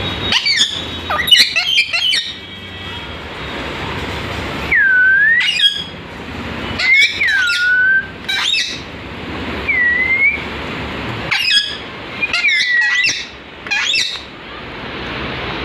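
Indian ringneck parakeet calling in a string of short, sharp chirps and squawks a second or two apart, several of them sliding down in pitch.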